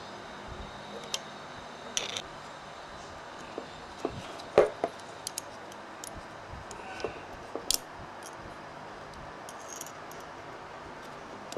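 Irregular small metallic clicks and taps, the loudest about four and a half seconds in, as fingers and small parts are handled against the aluminium body of a Toyota 2E's Aisan carburetor during jet replacement. They sit over a steady hiss.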